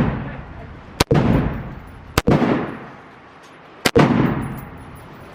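Three gunshots, a little over a second apart, each followed by a fading echo.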